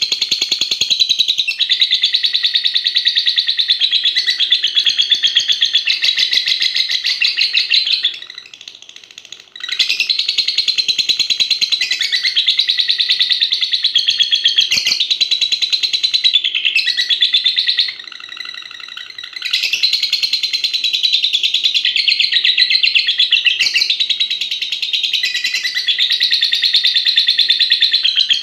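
Young lovebird singing in a long, unbroken run of very rapid high chattering trills, the extended 'ngekek' song kept for duration in lovebird contests. The bird breaks off briefly twice, about eight and eighteen seconds in.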